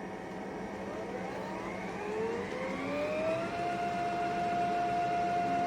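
Roborock F25 ACE wet-dry vacuum's motor spinning up in its cleaning dock, a whine rising in pitch over a couple of seconds and then holding steady, over a low hum. This is the roller-soaking and scrubbing stage of its self-cleaning cycle.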